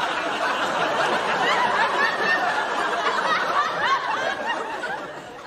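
Sitcom studio audience laughing after a punchline, the laughter dying down near the end.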